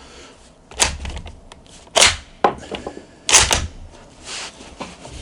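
Bolt of a Yugoslavian M48 bolt-action rifle worked hard by hand: a string of about six sharp metallic clacks as the bolt is lifted, pulled back and rammed forward to chamber a round. It is forced firmly because the action has been cycling stiffly and tight.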